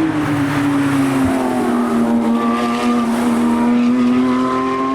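Car engines running on the track. The main engine note drops in pitch over the first two seconds, then climbs slowly again as the car comes off the throttle and picks back up. A second, lower engine note cuts out about a second in.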